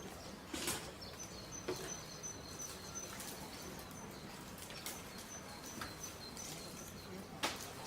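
Quiet rural outdoor ambience with rapid, evenly repeated high chirping. A few sharp knocks fall about a second in, near two seconds, and a louder one near the end.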